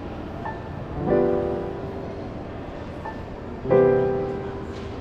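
Background piano music: slow chords struck about every two and a half seconds, each left to ring and fade.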